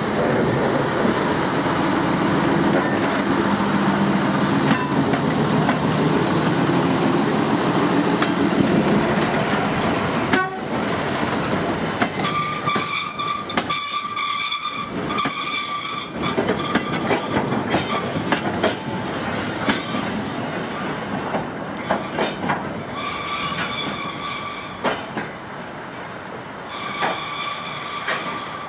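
Diesel shunting locomotive's engine running as it passes close by for the first ten seconds or so. Then a train of goods wagons rolls past, its wheels clicking over rail joints, with repeated high squeals from wheel flanges on the curve.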